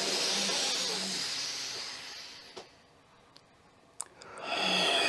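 A long, deep inhale through the nose as a steady hiss that fades out after about two and a half seconds, followed by a held-breath pause with a few faint clicks; a steady hiss comes back near the end.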